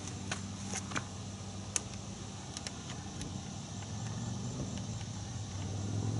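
Steady low engine hum, growing a little louder over the last couple of seconds, with a few light clicks.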